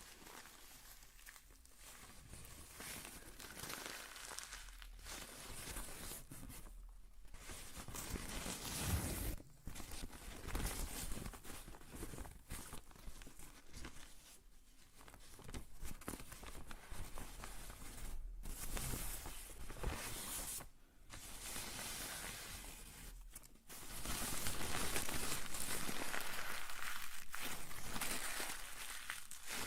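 Close-miked crinkling and rustling of handled material, in irregular stretches with short pauses, turning into a steadier, louder stretch of rubbing noise near the end.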